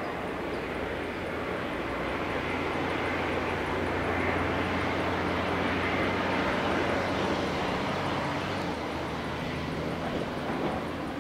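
Engine drone from an unseen vehicle passing by, swelling to its loudest midway and fading again, over a steady low hum.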